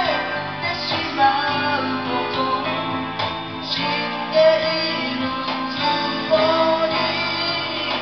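Karaoke: a voice singing into a microphone over a music backing track, both played through the room's speakers, with long held sung notes.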